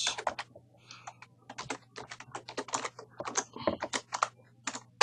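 Computer keyboard typing: quick, irregular keystroke clicks, with a short pause about a second in.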